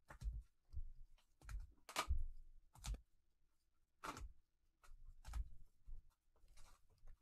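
Trading cards in rigid plastic toploaders handled by gloved hands: a string of short plastic clicks and taps, one or two a second, as the holders are shuffled and set against one another.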